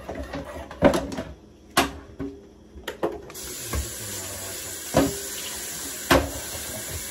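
Kitchen tap turned on, water running steadily into the sink from about three seconds in. A few sharp knocks come before and during it.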